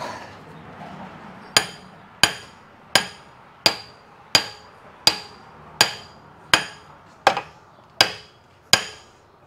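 Hammer striking the end of a hydraulic cylinder rod clamped in a vise: a steady run of about a dozen evenly spaced blows, roughly three every two seconds, starting about a second and a half in, each with a short metallic ring.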